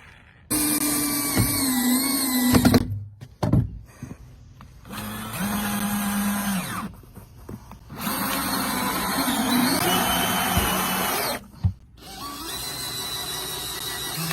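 Power drill running in several bursts of a few seconds each, its motor pitch rising and falling between trigger pulls, with short pauses between bursts.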